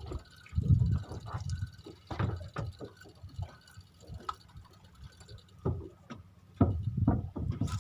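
Water splashing and sloshing in irregular bursts, with a few sharper knocks among them.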